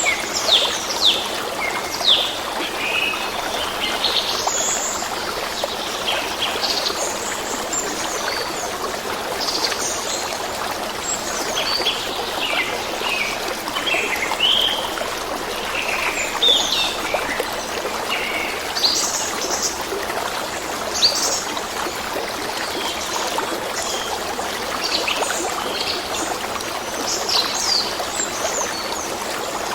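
A stream running steadily, with many songbirds chirping over it: short, high calls come every second or so.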